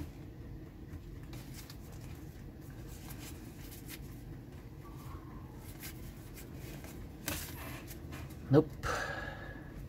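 Cardboard trading cards flipped through by hand, faint soft ticks over a steady low hum. About seven seconds in there is a brief louder rustle as the stack is put down.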